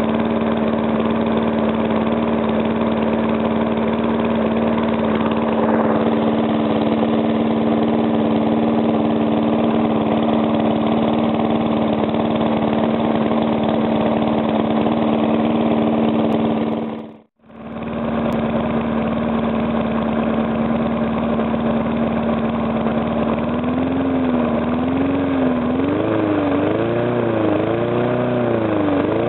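Briggs & Stratton small engine running steadily after a rebuild, with little knock audible: rearranging the piston rings cured compression leaking past the piston. The sound breaks off for about half a second a little past the middle, and near the end the engine speed rises and falls in repeated waves.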